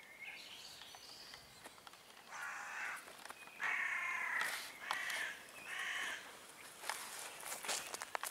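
Crow cawing: four harsh calls in a row, the second one longest.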